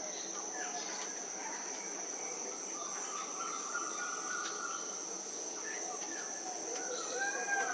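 Steady, high-pitched chorus of insects, crickets or cicadas, with scattered bird calls over it, one held for about a second and a half midway and several more near the end.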